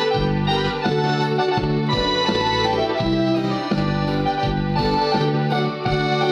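Yamaha PSR-E463 keyboard playing a programmed march-style accompaniment with a steady beat and repeating bass notes.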